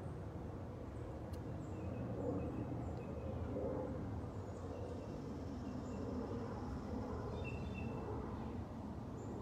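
Steady outdoor background noise with faint, scattered high bird chirps and a few light clicks.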